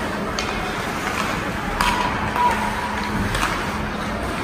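Ice rink game noise during a youth hockey game: a steady wash of skates on ice and spectators' voices, with a few sharp clacks of sticks and puck, one about two seconds in and another a second and a half later.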